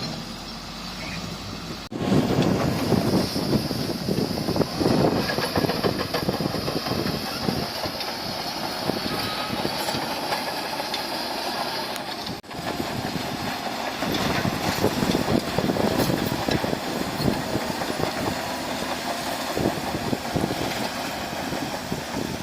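Bulldozer at work: heavy diesel engine running with continual clanking and rattling. It breaks off abruptly and picks up again about two seconds in and about halfway through.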